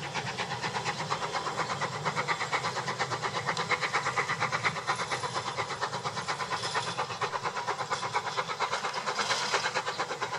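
Narrow-gauge steam locomotive pulling its train away, its exhaust beating in a rapid, even rhythm.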